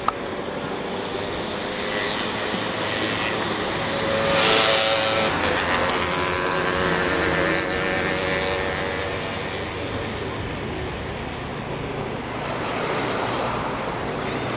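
Steady engine-like rumble of outdoor traffic or aircraft noise, swelling with a faint hum about four seconds in and easing off after about eight seconds.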